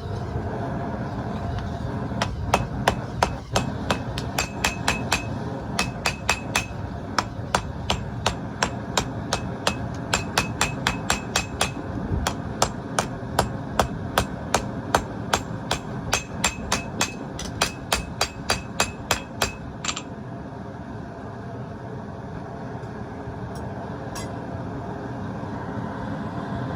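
Hammer forging steel on an anvil: runs of sharp, ringing blows, about two a second, with short pauses between runs, over a steady background noise. The blows stop for the last several seconds, leaving the steady noise and a couple of lone clicks.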